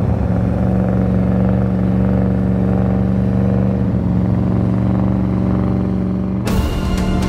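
Porsche Cayenne Turbo S's twin-turbo V8 running at steady revs under heavy load, a steady low drone, as the SUV tows a 285-ton Airbus A380. About six and a half seconds in, music cuts in suddenly.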